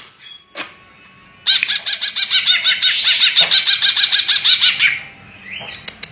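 Cucak ijo (green leafbird) singing a fast run of repeated chirping notes, about eight a second, for about three and a half seconds. It starts a second and a half in, after two short sharp clicks.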